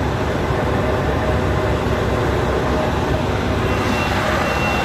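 Concrete mixer truck running, heard up close at its hopper: a steady, loud mechanical noise of the engine and the turning drum as it unloads concrete.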